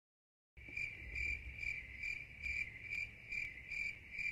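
A cricket's steady high trill, swelling in even pulses a little over twice a second over a faint low rumble. It starts about half a second in, after a moment of silence.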